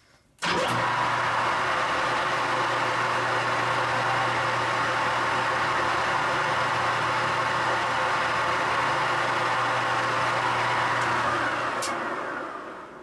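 Motor-driven felt polishing wheel switched on, running steadily while polishing a 3D-printed plastic knob, then switched off near the end and spinning down.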